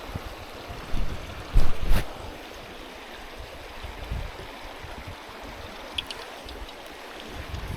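Small freshwater stream running steadily, with a few low thumps about one and a half to two seconds in.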